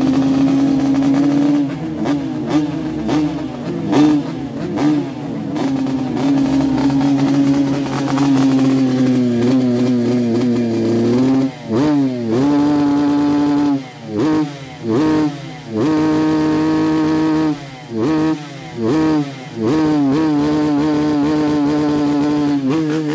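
Two-stroke motorcycle engine revved hard and held at high revs for about ten seconds. It is then blipped on and off the throttle about ten times, the revs dropping and snapping back up each time.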